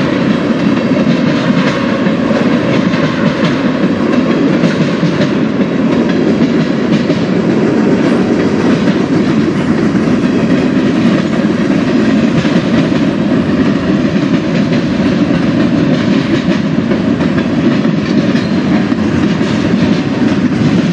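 CSX manifest freight train's cars rolling past, steel wheels running steadily on the rails with a continuous clatter.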